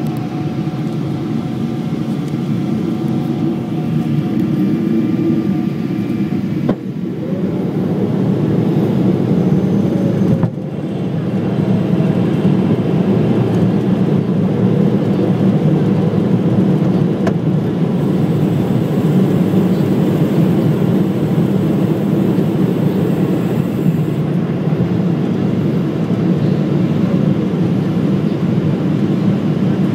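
Steady roar of an airliner's engines and rushing air during its approach to landing, with two brief dips in level about 7 and 10 seconds in.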